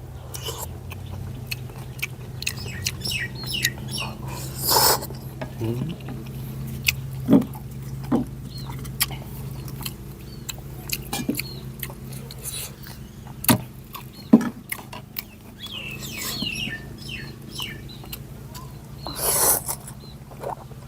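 A person eating noodle soup close to the microphone: irregular chewing, slurping and small clicks, over a steady low hum.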